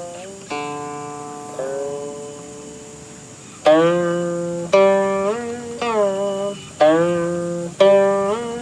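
Guqin being plucked: a long ringing note that slowly fades for about three seconds, then from about halfway a quicker run of plucked notes. Several of these slide upward in pitch just after the pluck as the left hand glides along the string.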